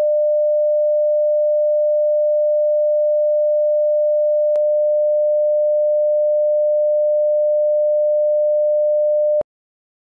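Steady single-pitch test tone played over colour bars, the line-up tone used to set audio level. It has a faint click about four and a half seconds in and cuts off suddenly near the end.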